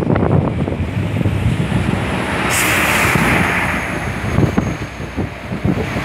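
Storm-force wind buffeting the microphone in irregular gusts with a low rumble. About two and a half seconds in, a hissing rush swells for about a second and then fades.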